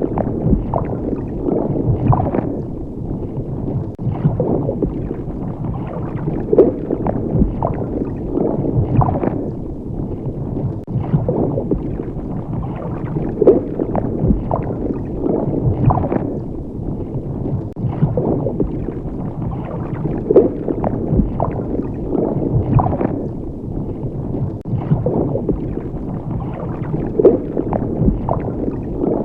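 Water bubbling and gurgling: a steady, muffled churn with frequent irregular bubble plops.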